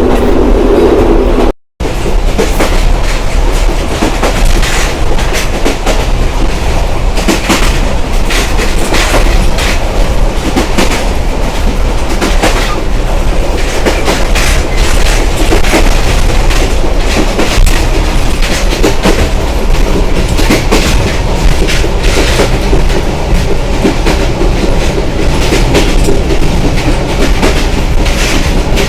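Express train running at speed: a loud, steady rush of track noise with the wheels clattering irregularly over the rail joints. The sound cuts out for a moment about a second and a half in.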